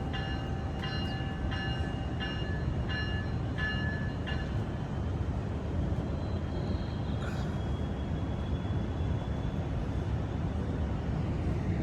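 Amtrak San Joaquin passenger train at the station: a steady low rumble throughout. For the first four or so seconds a bell rings in even strokes about every 0.7 s, then stops.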